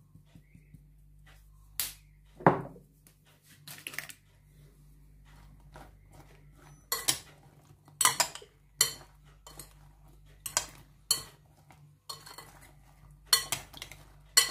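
Metal spoon clinking and scraping against a glass mixing bowl while tossing sliced eggplant, in a run of sharp clatters over the second half. A single louder knock comes about two and a half seconds in.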